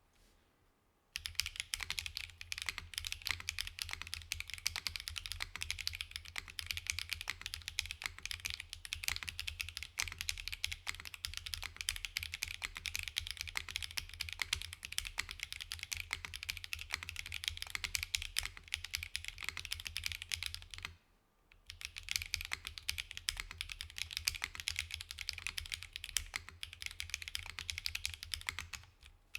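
Fast, continuous typing on a Sagittarius 70 prototype mechanical keyboard with K01 switches and GMK Black & Gold keycaps, gasket-mounted on a full aluminium plate with no foam dampening. The keystrokes start about a second in, pause briefly about two-thirds of the way through, then carry on.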